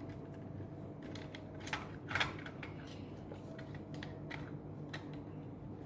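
Small clicks and taps of hands handling a toy RC car and its rechargeable battery pack, with two louder clicks about two seconds in, over a low steady hum.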